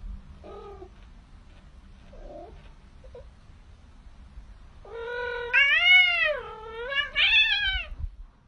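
Cat giving two faint short mews, then a loud drawn-out yowl of about three seconds starting about five seconds in, its pitch rising and falling twice.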